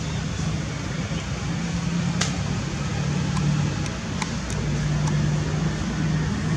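Steady low rumble of outdoor background noise, with a hum that swells and fades and a few brief sharp clicks scattered through it.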